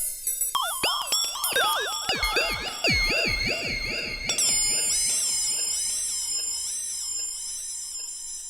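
Modular synthesizer patch playing pitched electronic tones that swoop up and down in quick glides. About four seconds in it settles into a steady, evenly repeating warbling sequence of high gliding notes.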